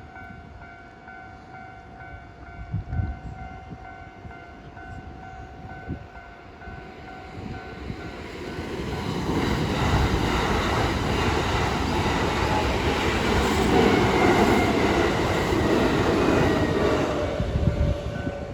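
Level crossing warning bell ringing in an even pulsing pattern, then a Kintetsu 8A series and 8600 series electric train running over the crossing: the train noise builds from about eight seconds in, stays loud, and drops off near the end as the bell is heard again.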